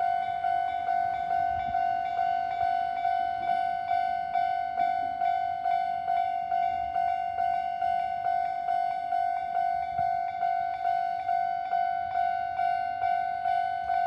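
Japanese railway level-crossing warning bell ringing: an electronic 'kan-kan' tone repeating evenly at about two strikes a second while the crossing is closed.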